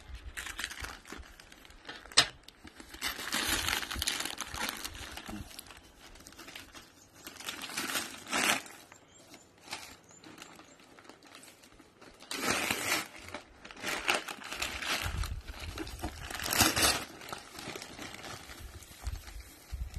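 Parcel wrapping of paper and plastic crinkling and tearing in irregular bursts as it is pulled off a box by hand, with one sharp snap about two seconds in.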